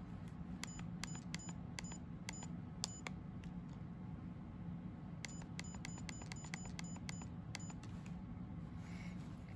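Digital camera's button beeps: short, high electronic beeps, one for each press as the date is stepped through on the settings screen. They come in two quick runs, one in the first three seconds and another from about five to eight seconds in.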